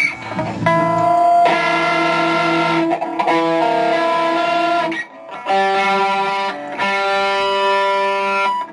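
Electric guitar playing held, ringing chords, one chord every second or so, with a short break about five seconds in.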